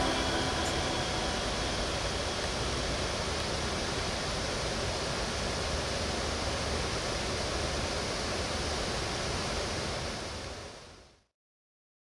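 A steady, even hiss of noise, like surf or rushing water, from the soundtrack of ambient electronic music. It fades out near the end into silence.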